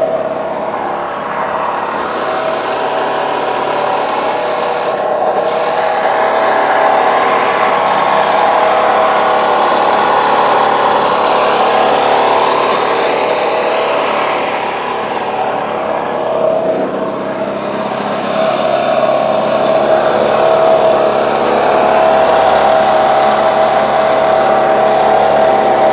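Pig roaster's electric spit motor running steadily with a droning whine that wavers slightly in pitch.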